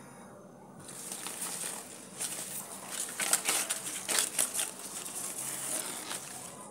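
Houseplant leaves rustling and crinkling right against the microphone, an uneven crackly rustle that starts about a second in and dies away near the end.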